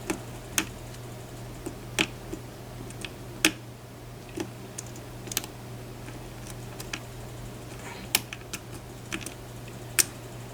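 Irregular sharp clicks of a metal lock pick and tension tool working the pins of a pin-tumbler lock, over a steady low hum.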